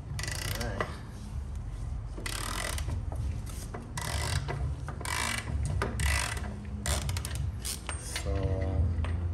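Ratchet wrench with a 32 mm socket clicking in a series of short strokes as it is swung back and forth, loosening a motorcycle's rear axle nut.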